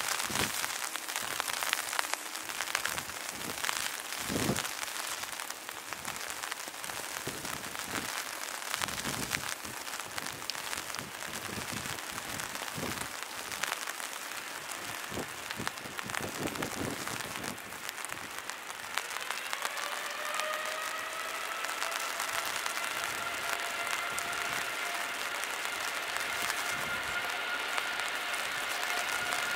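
Steady rain hiss with scattered drops tapping close by. About two-thirds of the way in, a Boeing 787's jet engines spool up with a rising whine that settles into several steady tones.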